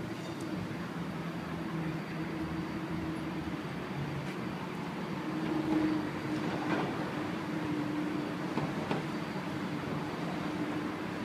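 City street traffic noise with the low, steady hum of a vehicle engine, its pitch shifting slightly.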